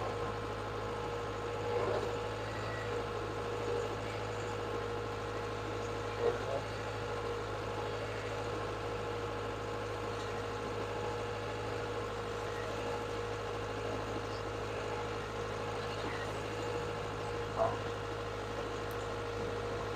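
Caterpillar 287B skid steer's turbocharged diesel engine running steadily, holding one engine speed without revving.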